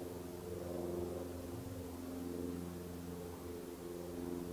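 Distant diesel locomotive engine running as it hauls coaches towards the listener, a steady low drone with several wavering tones.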